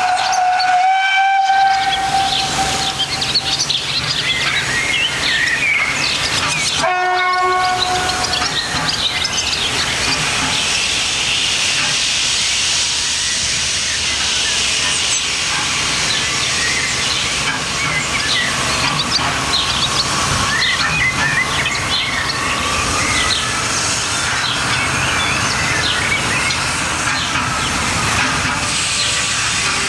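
Steam locomotive whistle sounding twice: a long blast of about two and a half seconds at the start, then a shorter one about seven seconds in. Under it runs the steady noise of the approaching steam train.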